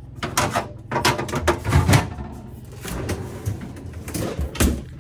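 Clatter and knocks of an RV refrigerator's doors and travel latch being worked, a dozen or so sharp clicks and thumps, over a steady low hum.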